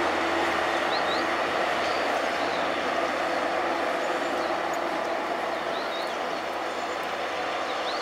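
Narrow-gauge diesel locomotive DL-38 and its carriages running along the track away from the listener, the engine and wheel noise slowly fading. Short bird chirps come through above it now and then.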